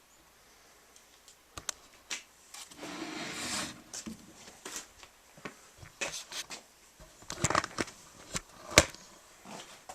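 Caulking gun and wooden birdhouse being handled during caulking: scattered clicks and knocks, a scraping rustle lasting about a second some three seconds in, and a sharp click near the end, the loudest.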